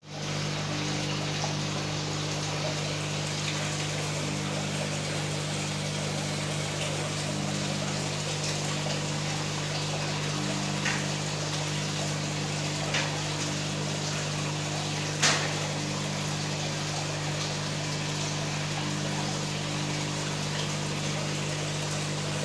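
Aquarium pump running: a steady electric hum under a constant wash of water noise. Three short clicks or taps come near the middle, the last and loudest about two-thirds of the way through.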